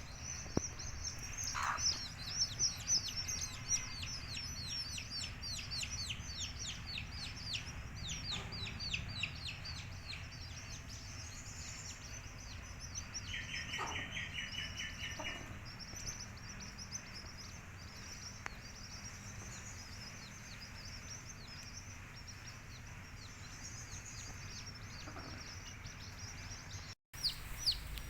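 Baby chicks peeping continuously, many short high descending peeps overlapping, with a quick rapid run of notes about halfway through.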